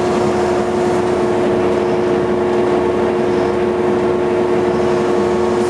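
Blanchard 20D rotary surface grinder running, its magnetic chuck turning and coolant spraying: a steady machine hum with a strong constant tone over an even hiss.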